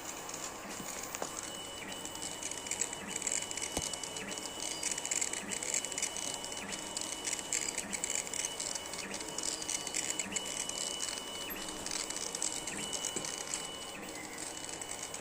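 A CO2 laser cutting and engraving machine at work: its stepper-driven head moves with a steady high whine and a mechanical hiss. The whine breaks briefly about every 1.2 seconds, as the head turns at the ends of its passes.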